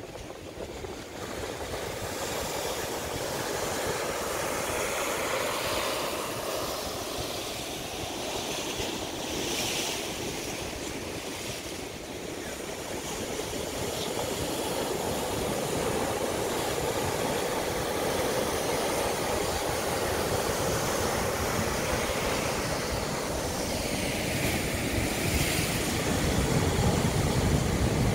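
Ocean surf: a steady wash of waves that grows louder toward the end as a wave breaks into whitewater.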